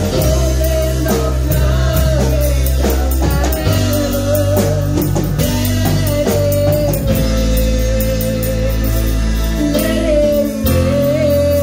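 Live church worship band: a woman singing lead through a microphone over keyboard, electric guitar and drums, all amplified through the PA speakers, with steady drum strokes under a long held note.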